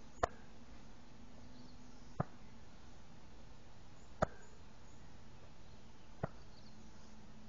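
Hands slapping against the body at each turn of a side-to-side waist-twisting qigong exercise: one sharp pat about every two seconds, four in all.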